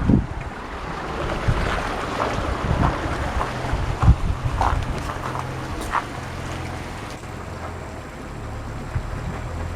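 Wind gusting against the microphone, with the low, steady rumble of a vehicle's engine from the road underneath.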